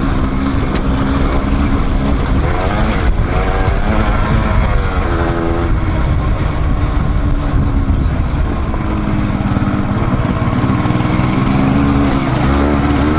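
Dual-sport motorcycle engine running under way, its pitch rising and falling several times as the throttle opens and closes, over heavy wind rumble on the microphone.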